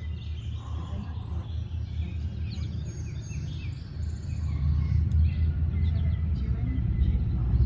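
Outdoor ambience: birds chirping over a low, steady rumble that grows louder about halfway through.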